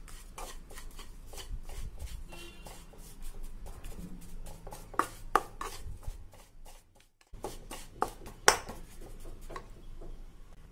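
A spatula scraping and tapping against a non-stick kadhai as roasted gram flour mixed with ground makhana is stirred: irregular soft scrapes and clicks, a few sharper, with a brief silence about seven seconds in.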